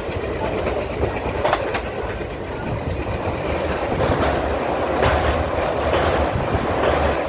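Passenger train coach running at speed, heard from its open door: a steady rumble of wheels on the track with clickety-clack beats from the rail joints. It grows louder about four seconds in as the coach crosses a small bridge.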